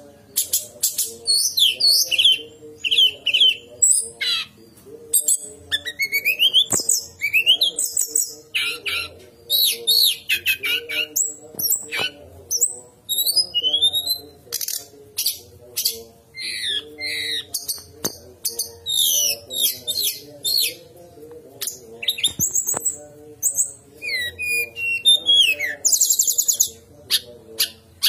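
Brown-chested jungle flycatcher song: a fast, unbroken run of varied whistled notes that glide up and down, mixed with sharp chips and clicks. A low steady drone runs underneath.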